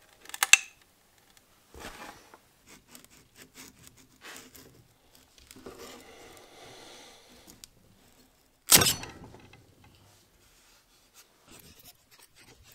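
3D prints being scraped and pried off a removable printer build sheet with a spatula: bouts of scraping, then a loud sharp crack about nine seconds in as a strongly stuck print breaks free.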